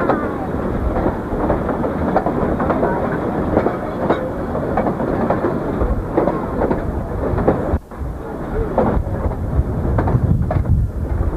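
Passenger train rolling across a steel railway bridge: the cars rumble and rattle, with a rapid clatter of wheels over the rails.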